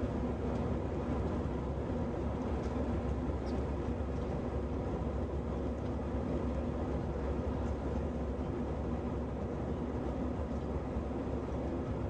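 Airbus A319 cabin noise heard from a window seat during the climb after takeoff: a steady, even rumble of the jet engines and rushing air, with a faint steady hum underneath.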